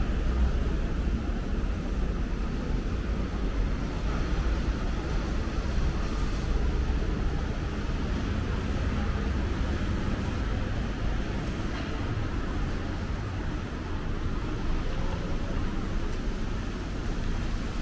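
Steady city street traffic: vehicles running and passing, with a constant low rumble.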